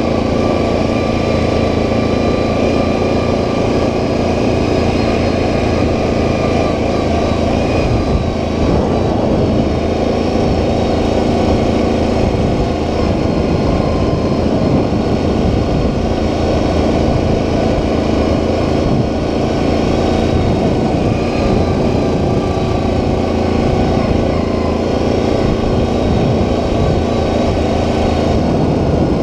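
Single-cylinder ATV engine running at a steady cruising speed along a dirt trail, its drone even throughout, with the rumble of the ride underneath.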